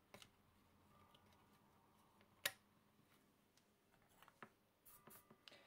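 Near silence broken by a few light clicks and taps from handling a small circuit board and parts on a desk, with one sharper click about two and a half seconds in.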